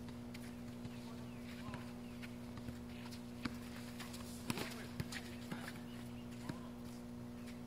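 A basketball bouncing on an outdoor court: scattered sharp knocks at uneven intervals, loudest about four and a half to five seconds in. A faint shout comes near the same point, over a steady low hum.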